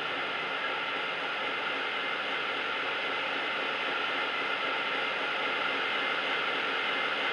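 Model Class 56 diesel locomotive's DCC sound file, played through an EM1 speaker, idling with a steady hissing engine note that grows slightly louder.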